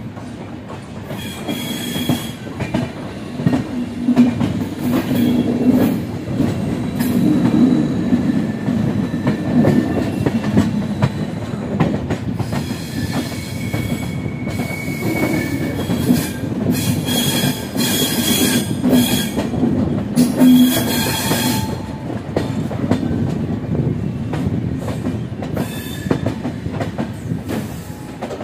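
Express train coaches running on the track, heard from an open coach door: a steady rumble with wheels clattering over rail joints and points. Thin high squeals of wheels against the rails come and go on the curve, mostly through the middle.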